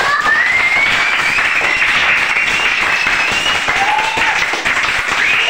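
A class of young children clapping together in applause. A long, slowly rising high tone carries over the clapping for the first three seconds or so.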